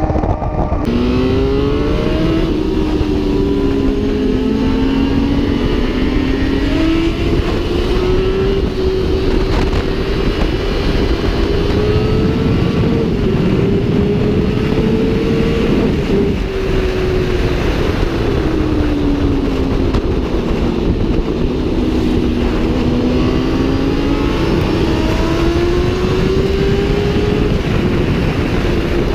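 Sport motorcycles riding at speed under heavy wind rush. Two or three engine notes slowly rise and fall as the riders hold and change speed.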